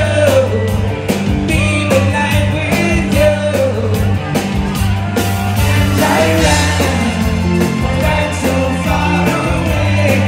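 Live rock band playing loud, heard from the audience: electric bass and drums keeping a steady beat, with a woman singing over them.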